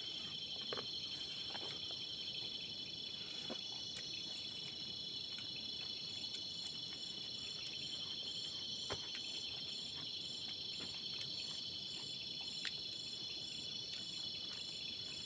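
Crickets trilling steadily, several high pitches sounding at once, with a few faint clicks scattered through.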